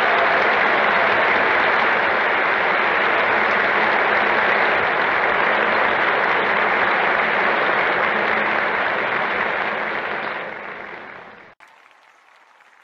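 An audience applauding steadily on an old, narrow-band film soundtrack. The applause fades out about ten seconds in and cuts off, leaving only a faint hiss.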